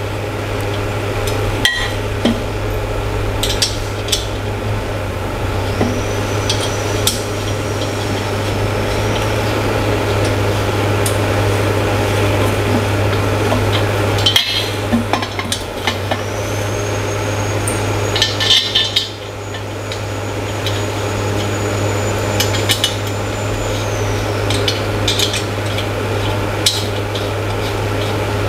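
Metal dining-chair frame parts knocking and clinking as tubular legs are fitted onto the frame, with a few sharper knocks about 2 s and 14 s in and a cluster near 19 s, over a steady low hum.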